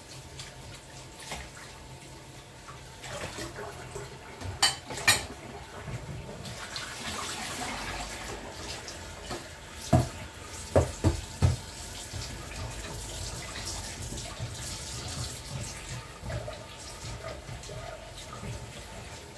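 Kitchen tap running into a sink, with two sharp clicks about five seconds in and a few knocks of utensils or a pan around ten seconds in.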